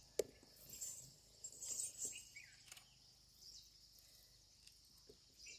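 Faint outdoor ambience: a steady high drone of insects with a few short falling bird chirps, and one sharp click just after the start.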